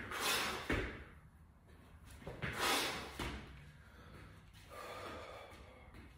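A person breathing hard during burpees: two loud, forceful exhales, near the start and about two and a half seconds in, with a few dull thuds of hands and feet landing on the floor mat, and a softer breath near the end.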